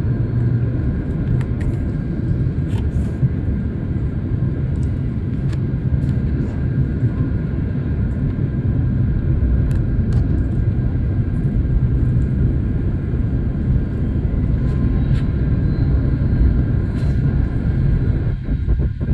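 Jet airliner cabin noise in flight: a steady low rumble of engines and airflow with a faint steady whine and a few small clicks. The rumble drops away suddenly near the end.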